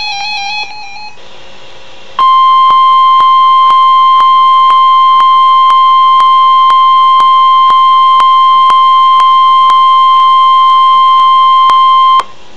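NOAA Weather Radio 1050 Hz warning alarm tone, sounded for the required weekly test of alert receivers: one loud, steady, high beep that starts about two seconds in, is held for about ten seconds and cuts off suddenly near the end.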